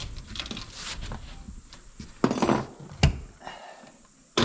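Nails being driven into a gable-end sheathing panel: two sharp knocks about three-quarters of a second apart, the first a little longer, and another strike at the very end.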